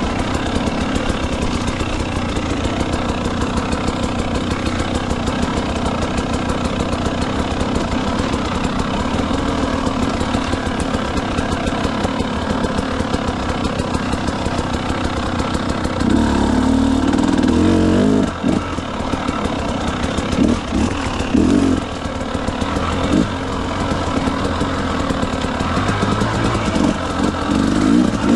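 Motorcycle engine running steadily at low revs, then from a little past halfway revved in uneven surges, its pitch and level rising and falling.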